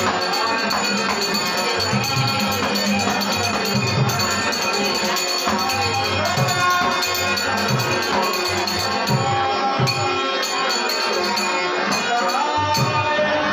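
Devotional folk-theatre music: a harmonium holds steady chords while small brass hand cymbals keep up a jingling beat. A man's voice sings over them in places.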